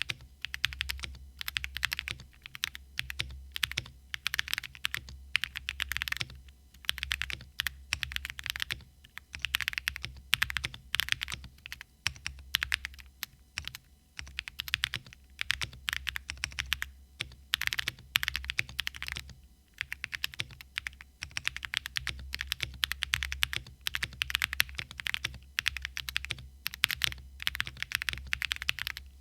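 Steady typing on a Zoom TKL mechanical keyboard with lubed and filmed NovelKeys Cream linear switches on an FR4 plate, dampened with case and plate foams: fast runs of keystrokes broken by brief pauses, over a faint low hum.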